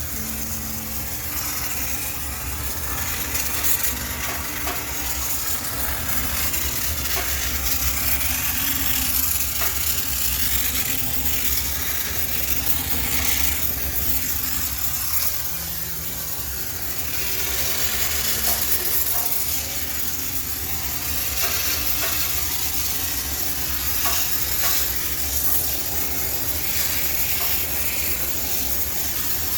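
High-pressure steam cleaner jetting steam onto a washing machine for sterilization: a steady sizzling hiss over a low hum.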